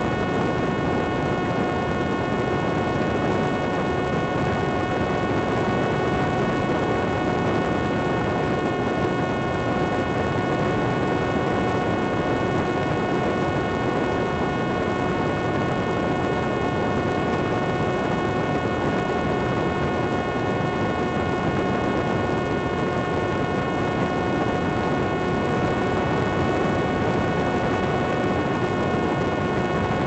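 Parrot Disco fixed-wing drone's electric motor and propeller running flat out, recorded on board. It gives a steady buzzing whine that does not change in pitch, over a steady rush of air.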